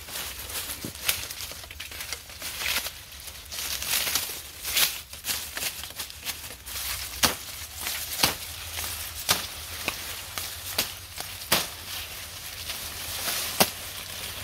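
A series of sharp knocks at irregular intervals, about one a second in the second half, over continuous rustling and crackling.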